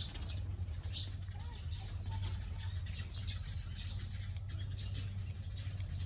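Puppy suckling milk from a baby bottle's rubber nipple: faint wet smacking clicks over a steady low hum.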